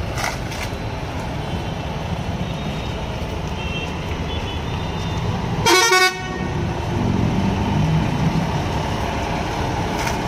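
Diesel engine of a Volvo multi-axle sleeper coach, a steady low rumble as it pulls away slowly. A horn toots briefly near the start, and about halfway through gives one short, loud blast, the loudest sound.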